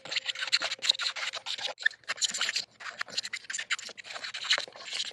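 Hand pull scraper dragged in rapid short strokes across a pecan board, scraping down cured epoxy fill and raising wood shavings: a dry scratching with every stroke, in runs broken by brief pauses.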